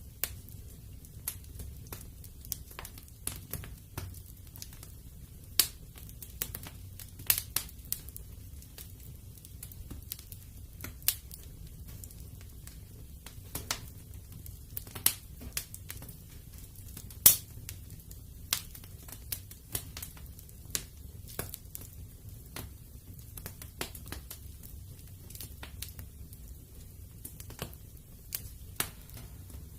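Wood fire in a fireplace crackling: irregular sharp pops and snaps over a low steady rumble, with one louder pop a little past the middle.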